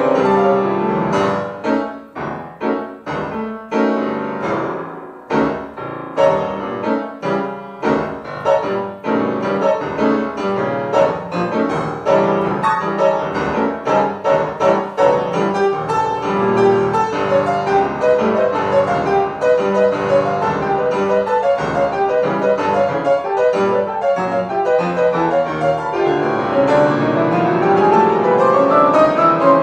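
Solo grand piano improvisation: spaced, separately struck chords for the first several seconds, then a denser flow of running notes, and near the end a fast run climbing upward.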